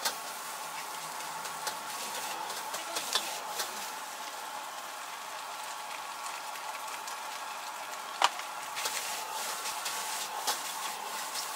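Shrimp fried rice sizzling in a wok as a metal ladle stirs and scrapes it, with scattered clinks of the ladle on the wok and one sharp clink about eight seconds in.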